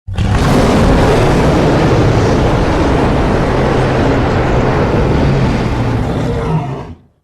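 A pitched-down kaiju monster roar sound effect: one long, low, rasping roar that starts abruptly, holds for about six seconds and fades out near the end.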